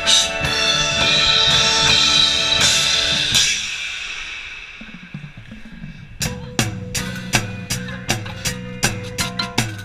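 Drum-corps front-ensemble drum set with cymbals playing in the full ensemble: a loud cymbal wash with held chords that fades away, then, about six seconds in, a steady run of sharp drum hits, about three a second, over a held note.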